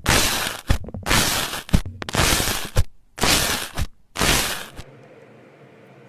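Slime being squeezed and pressed by hand, giving about five loud crackling, crunchy squishes roughly a second apart with sharp pops in them; they stop about five seconds in.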